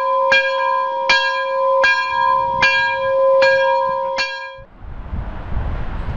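Railway level-crossing warning bell ringing in even strokes, a little faster than one a second. It cuts off suddenly about four and a half seconds in, giving way to wind noise and a low rumble.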